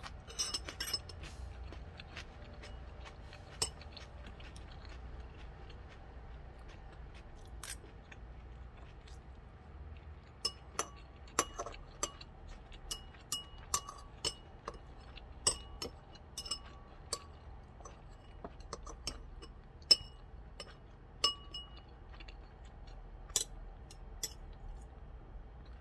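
Metal spoon and chopsticks clinking and scraping against a ceramic rice bowl and plate, in sparse single clinks with a short ring, more frequent in the second half.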